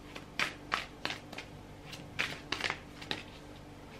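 A tarot deck being shuffled by hand, giving a run of about six short, crisp card swishes at uneven intervals.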